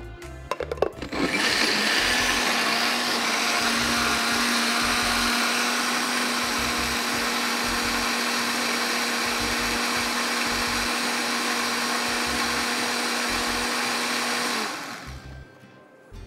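Countertop blender with a glass jar running steadily, blending a thin liquid marinade of coconut milk, chilli sauce, ginger and garlic. A few clicks come first, the motor starts about a second in, and it winds down near the end.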